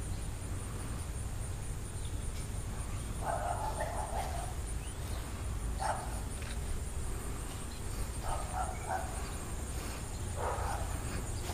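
A dog barking several times with pauses between: a longer bark about three seconds in, then short barks roughly every two seconds.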